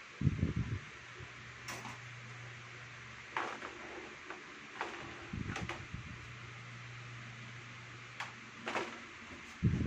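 Thin rod scraping and clicking against a wire cat cage and its floor tray in several short strokes, with a few low thumps near the start, in the middle and at the end, over a steady low hum.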